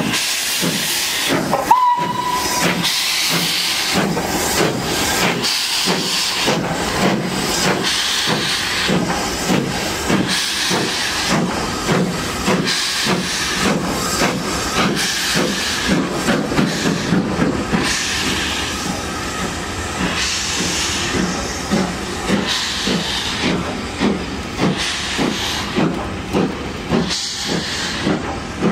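LNER B1 4-6-0 steam locomotive No. 61306 pulling away with its train: exhaust beats from the chimney that come faster as it gathers speed, over a steady hiss of steam from around the cylinders. A short whistle blast sounds about two seconds in.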